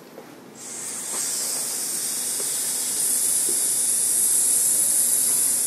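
Workshop participants breathing out together in a long, steady hiss, pushing the air out from the diaphragm as a breathing-control exercise. The hiss starts about half a second in and grows louder over the next couple of seconds.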